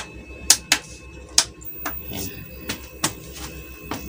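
Front-panel tact switch buttons on a CRT TV being pressed again and again, about eight sharp clicks at irregular spacing. The switch is said to be broken, so it takes repeated presses to switch the set on.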